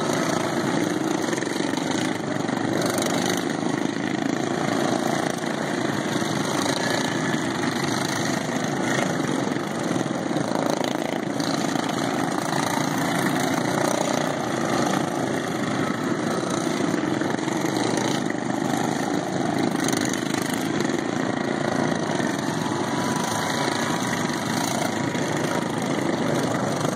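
Several racing lawn mowers with factory-stock single-cylinder engines, governed to 3650 rpm, running together around a track; a steady, dense engine sound with no break.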